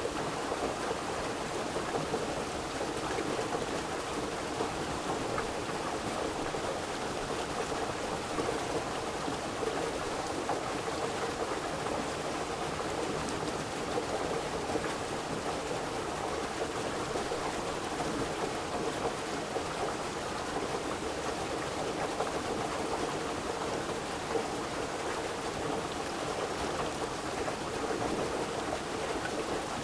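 Steady rushing water, an even unbroken hiss with no distinct drops, rumbles or changes.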